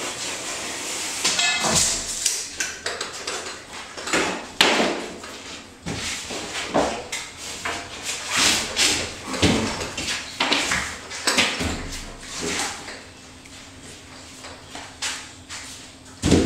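Irregular knocks, scrapes and rustles of a cut piece of drywall being handled and pushed up into place against wood framing.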